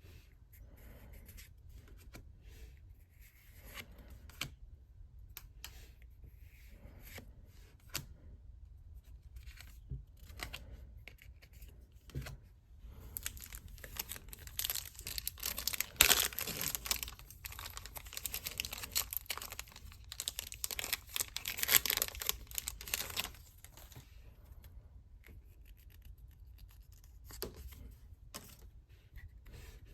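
Pokémon trading card packaging being handled and torn open by hand. Scattered small clicks and rustles, then about ten seconds of loud tearing and crinkling from a little before halfway, dying back down to light handling.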